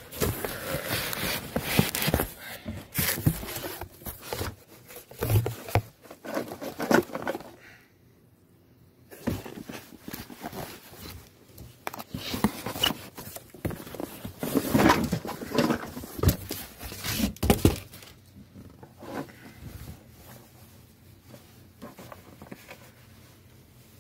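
Handling noise as a hanging Halloween reaper decoration is pulled out of its cardboard box: irregular rustling and crinkling of its thin black robe and packaging, with knocks against the box. There is a short lull about eight seconds in, and the handling is quieter over the last six seconds.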